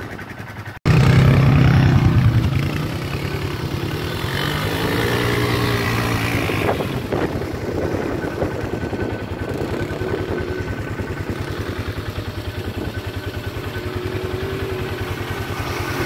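Polaris Phoenix 200 ATV's single-cylinder four-stroke engine running under way, its pitch rising and falling as the throttle is worked. A brief dropout about a second in.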